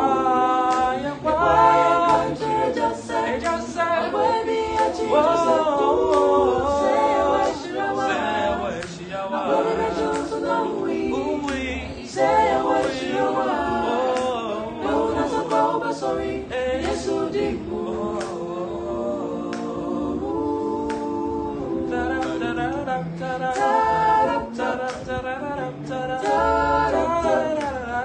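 A small mixed group of five voices, four men and a woman, singing a gospel song in Twi a cappella, in harmony with held chords.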